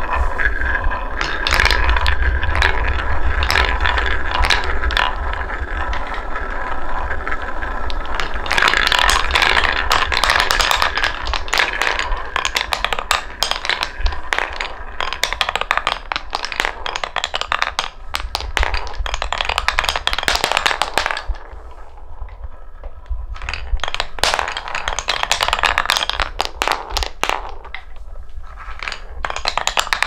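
Red balls rolling and spinning around the wooden bowl of a wooden-block marble run, a continuous rolling rumble full of clicks and rattles, then balls rolling along wooden track pieces and clattering over the joints. About two thirds of the way in, the rolling thins out into sparser bursts of clicks.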